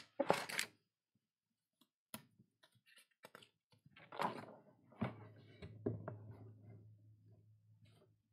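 Handling noises close to the microphone: a few sharp clicks and short rustles, with a low steady hum in the second half.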